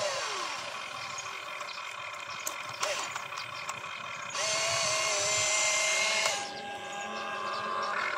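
The electric motors of a radio-controlled toy excavator whine as it digs, with a few small clicks and scrapes. For about two seconds past the middle a louder steady whine holds one pitch as the upper body swings round and raises the boom toward the dump truck, then cuts off abruptly.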